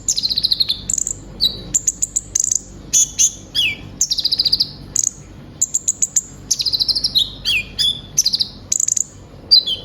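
A kolibri ninja (konin) sunbird singing a long, varied song of high-pitched chirps, rapid ticking and short trills, some notes sliding down in pitch, with mimicked phrases of other birds woven in.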